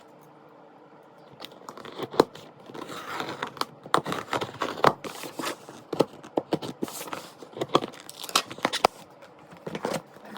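Parcel packaging being torn and crinkled open by hand: irregular tearing, rustling and sharp crackles.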